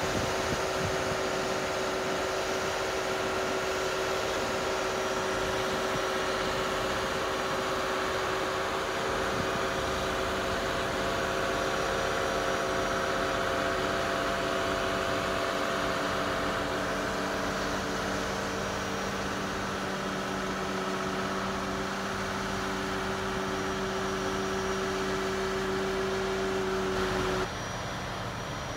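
Demag mobile crane's engine and hydraulics running steadily under load as it holds and swings a heavy lift: a steady drone with a held tone over it. Near the end it cuts off abruptly, leaving a quieter engine sound.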